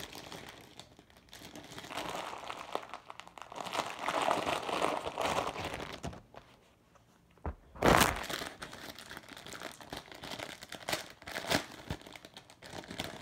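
Clear plastic sock packaging crinkling and crackling as it is handled and opened by hand. It pauses briefly past the middle, then there is one louder short burst of crinkling about eight seconds in, followed by scattered crackles.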